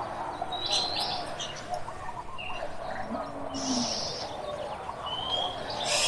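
Forest birds singing: short high chirps and brief rising whistles, with busier bursts of twittering about a second in, near four seconds and at the end. Under them runs a continuous lower chatter of calls. A single low drawn-out note comes about halfway through.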